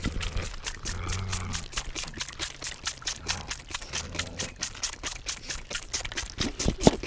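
LaMancha goat kid guzzling milk from a feeding bottle: rapid, rhythmic sucking and gulping, several slurps a second.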